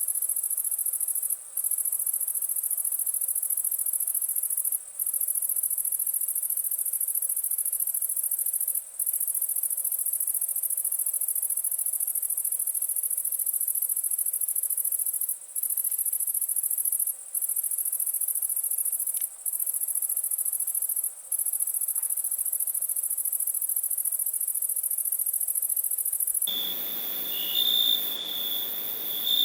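Crickets trilling in a steady, very high-pitched chorus that drops out for a moment about seven times. Near the end it changes to a lower, louder chirping cricket.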